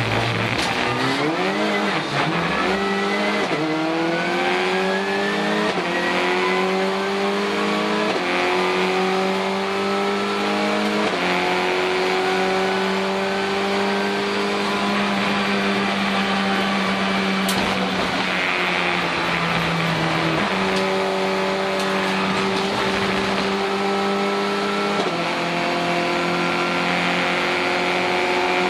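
Renault Clio Cup race car's engine heard from inside the cockpit, pulling hard under full throttle. The pitch climbs and steps down at each upshift through the first ten seconds or so, then holds high with further gear changes about two-thirds and five-sixths of the way through.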